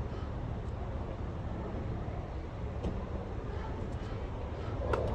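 Steady low outdoor background rumble. Near the end comes a single sharp pop of a tennis racket striking the ball on a serve.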